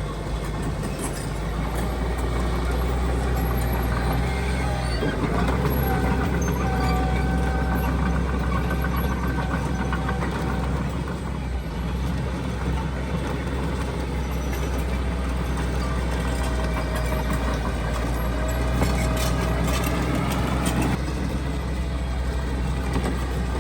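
Heavy diesel earthmoving machinery running steadily with a deep engine rumble, and a thin higher whine that comes and goes, wavering slightly in pitch.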